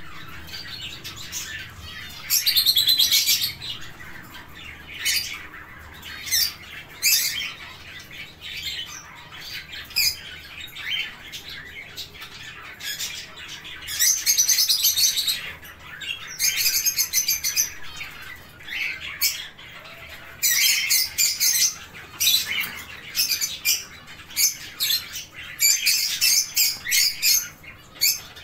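Fischer's lovebirds chattering: shrill, rapid chirps and screeches in bouts of a second or two, with quieter calling between.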